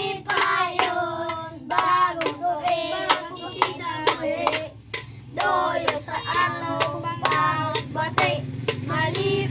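Group of children caroling, singing a Christmas carol to a steady beat of sharp hand claps, about three a second.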